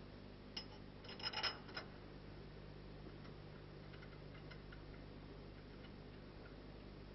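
A few light metallic clicks and clinks from steel engine parts and a hand tool being handled, loudest in a short cluster between one and two seconds in, over a faint steady low hum.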